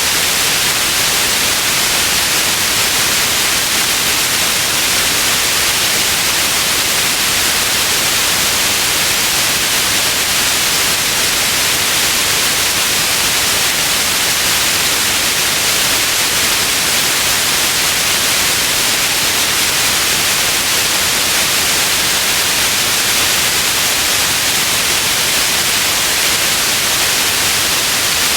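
Steady white noise: an even, unchanging hiss, brightest in the upper range.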